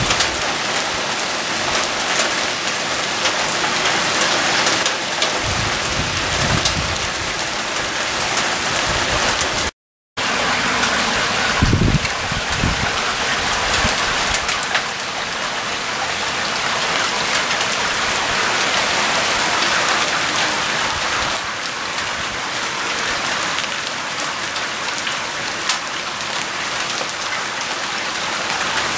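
Heavy rain mixed with hail falling steadily on grass and leaves, a dense hiss of countless small impacts. There are a few low rumbles near the middle.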